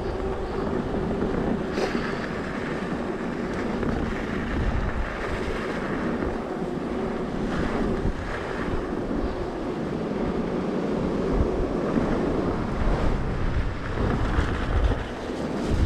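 Wind buffeting the microphone of a camera riding along on an e-mountain bike: a steady rushing noise with gusty low rumbles.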